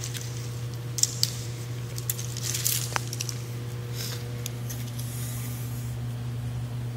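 Pinstripe tape rustling as it is pulled and pressed onto the floor, with a few short sharp clicks in the first half, over a steady low hum.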